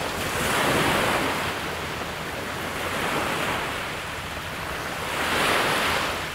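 Small waves breaking and washing up on a gravel shore, surging about every two and a half seconds.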